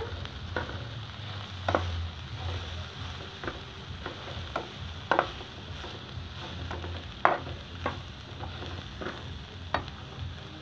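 Diced potatoes with onion, tomato and green pepper sizzling in a metal pan while a metal spatula stirs them, clacking and scraping against the pan about once a second. The loudest knocks come about two, five and seven seconds in.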